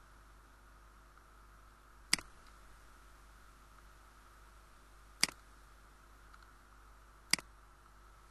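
Three sharp computer mouse button clicks, a few seconds apart, over a faint steady hiss.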